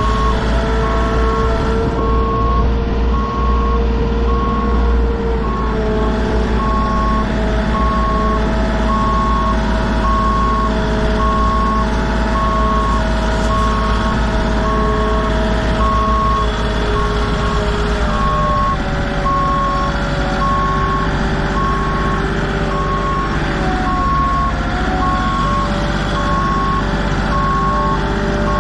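Vehicle backup alarm beeping steadily on one pitch, about once a second, over a diesel engine running.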